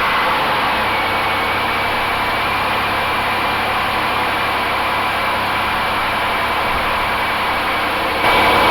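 2001 Pontiac Grand Am engine idling steadily just after starting, with a faint steady whine over it. The car had failed to crank because of a loose side-post battery cable, now repaired.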